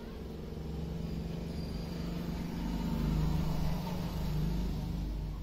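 Low hum and rumble, growing louder to a peak about three seconds in and then easing off.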